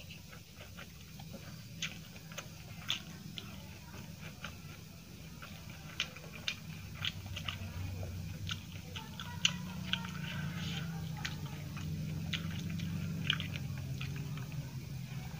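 Close-miked chewing of a mouthful of rice and egg curry: irregular wet mouth clicks and smacks, several a second at times, over a low steady hum.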